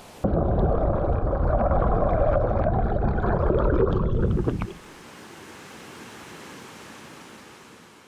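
Rushing stream water heard underwater: a loud, muffled rumble with little treble. About four and a half seconds in, it gives way suddenly to the much softer, even hiss of a waterfall, which fades out near the end.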